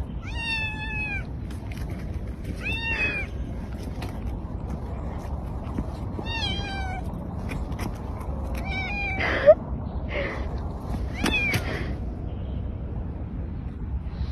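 Domestic cat meowing five times, each meow short and bending in pitch, spaced a few seconds apart. A sharp click about two-thirds of the way through.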